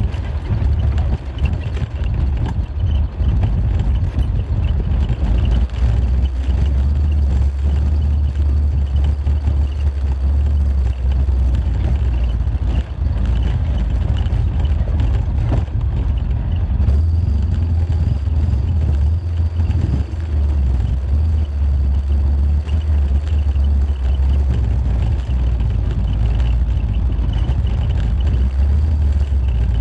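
Car driving downhill on a mountain road: a steady low rumble of engine and road noise.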